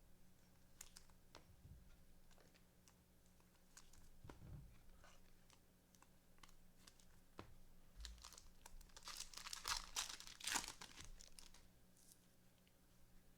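Faint crinkling and tearing of a foil trading-card pack wrapper being ripped open and handled, with light clicks of the cards, the crinkling loudest for about two seconds near the end.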